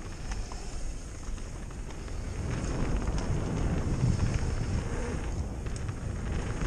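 Mountain bike descending a dirt trail at speed: wind rushing over the microphone and tyres rolling over the dirt, with a few light clicks and rattles from the bike. It gets louder from about two and a half seconds in.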